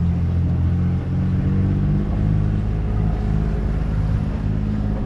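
Sailboat's inboard diesel engine running steadily under way, throttled up a little about a second in, so its low drone steps up in pitch.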